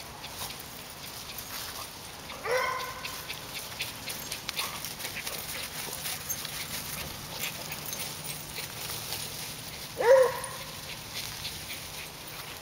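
A dog gives two short barks, one about two seconds in and a louder one near the end. Between them, faint rustling of paws in dry fallen leaves.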